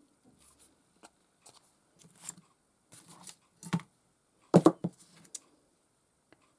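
Scattered small clicks, taps and rustles of hands handling paper card, lace and a small metal ribbon end at a work table, with a cluster of sharper clicks about four and a half seconds in.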